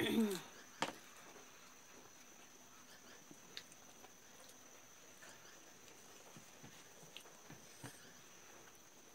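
Quiet eating sounds: faint scattered ticks and taps of fingers working food on plates. A short falling voice sound comes at the very start, and a sharp click just under a second in.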